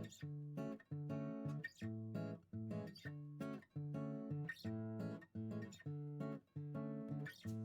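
Background music: rhythmic strummed acoustic guitar chords, repeating with short gaps between strums.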